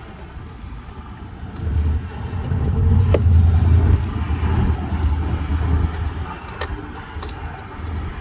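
Low rumble of a vehicle passing, swelling about two seconds in and easing off toward the end, with a couple of faint clicks.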